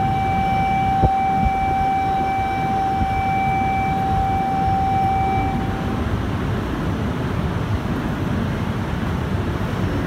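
A single steady high tone, like a warning buzzer, holds for about six seconds and then stops, over the steady rumble of an E2 series Shinkansen standing at the platform. There is a single click about a second in.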